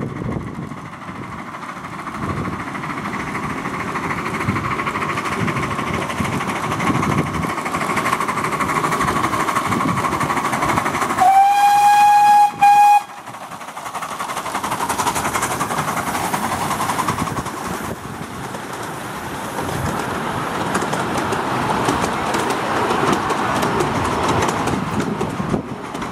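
A 10¼-inch gauge miniature steam locomotive, the streamlined 4-6-2 No. 6220 'Coronation', running its train along the track with a steady rumble and rattle. About eleven seconds in it sounds its whistle, a long blast and a short one, the loudest sound here.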